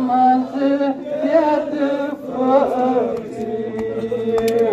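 A man chanting a Muharram mourning elegy (noha) into a handheld microphone in drawn-out melodic phrases, holding one long note near the end.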